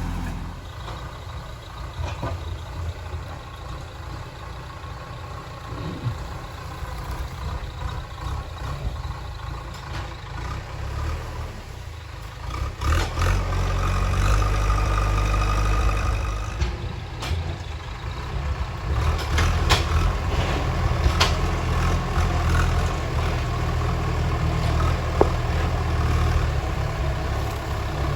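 JCB 3DX backhoe loader's diesel engine running, with a steady low rumble that grows louder about halfway through as it works harder, and a few sharp clanks in the second half.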